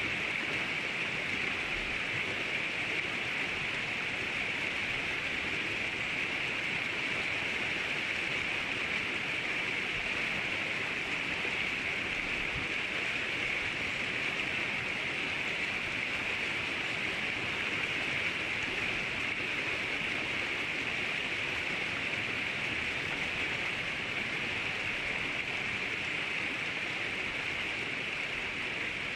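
River water flowing, a steady even rushing with no change in level.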